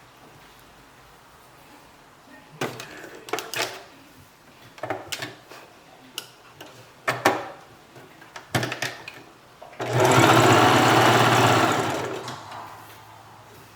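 Sewing machine stitching in one steady run of about two seconds near the end, before which come scattered light clicks and knocks of handling.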